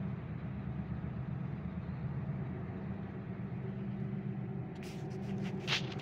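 Steady low engine rumble heard from inside a car, with a cluster of sharp clicks and a short high squeal near the end.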